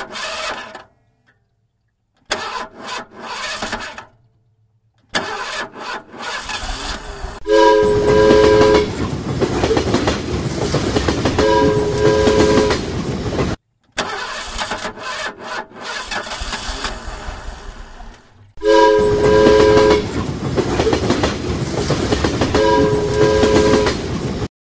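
Train sound effect: a steady rumbling run with a chord-like train horn sounding four times, each blast about a second long. A few short, choppy engine-like sounds come before it.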